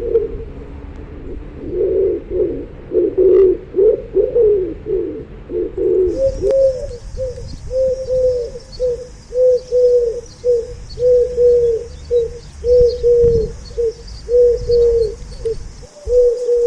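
Pigeons cooing: low, throaty coos that overlap loosely at first, then from about six seconds in settle into an even run of phrases, each followed by a short clipped note, over a low rumble.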